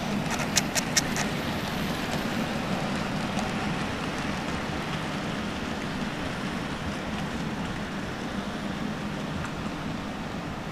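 00 gauge model trains running on the layout track: a steady running noise, with a quick run of sharp clicks in the first second or so.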